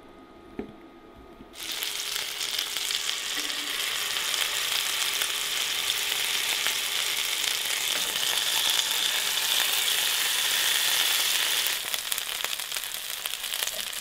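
Rectangular stacks of layered potatoes au gratin sizzling as they fry and crisp in butter and olive oil in a pan. The sizzle starts abruptly about a second and a half in, holds steady, and eases a little near the end.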